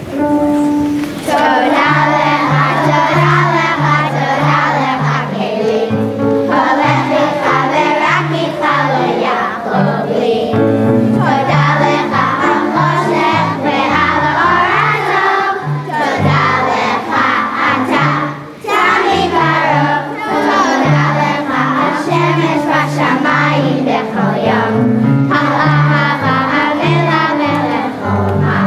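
A children's choir singing together over an instrumental accompaniment with a bass line moving in short, rhythmic notes.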